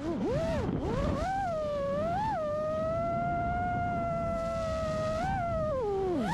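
FPV quadcopter's brushless motors and propellers whining, heard from the drone's onboard camera with a rough rush of prop wash and wind beneath. The pitch follows the throttle: quick dips and climbs in the first second or so, a fairly steady whine through the middle with short blips, then a steep drop near the end as the throttle is cut.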